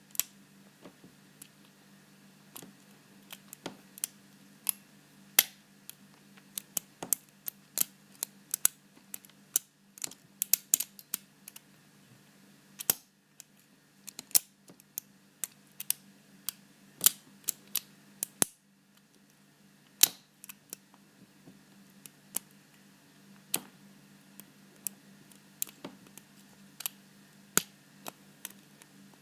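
Lock pick clicking and tapping against the pin stacks inside a seven-pin Paclock PL410PRO padlock held under tension-wrench pressure: many sharp, irregular clicks, sometimes in quick runs, over a faint steady low hum.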